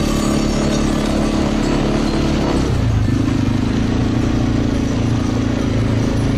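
Quad bike (ATV) engine running steadily under way, heard close up from aboard; its note changes about two and a half seconds in.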